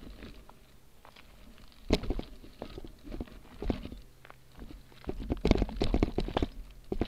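Motobecane Fantom Cross gravel bike rolling over rough rock and loose gravel: irregular crunches, knocks and rattles as the tyres hit stones and the bike and its seat-post camera jolt, with a sharp knock about two seconds in and a dense run of them from about five seconds on.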